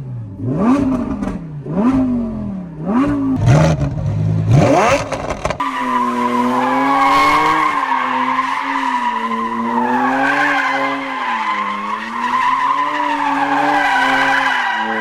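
Lamborghini Huracan EVO's 5.2-litre V10 in Corsa mode, revved hard in about five quick blips, each note rising sharply and falling away. After a sudden cut about five seconds in, a steady engine note takes over, held at revs and wavering slowly in pitch, with a higher squeal above it.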